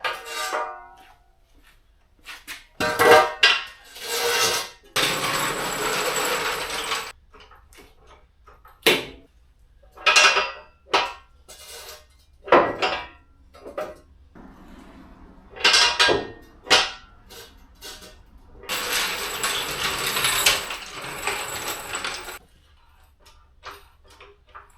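Metal clanks and knocks of tools and a jack being worked under a pickup truck, with two stretches of steady rushing noise a couple of seconds each, the second near the end.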